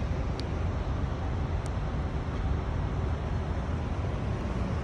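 Steady low rumble of a semi truck's diesel engine running at low speed, with a couple of faint clicks in the first two seconds.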